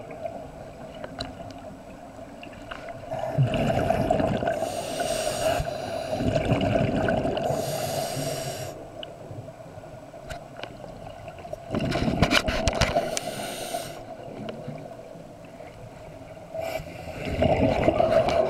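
Scuba diver breathing through a regulator, recorded underwater: a rush of air and bubbles every couple of seconds over a steady hum, with a few sharp clicks about twelve seconds in.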